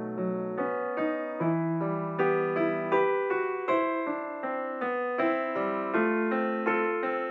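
Background piano music, gentle notes struck about twice a second.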